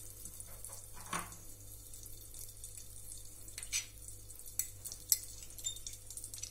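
Oil heating in an aluminium kadai, faintly crackling with a few sharp pops as it comes up to frying heat.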